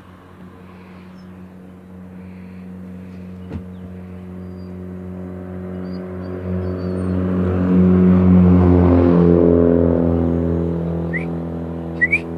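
A motor vehicle's engine hum draws near on the road and passes. It builds steadily to a peak about two-thirds of the way through, then fades. A few short, high rising squeaks come near the end.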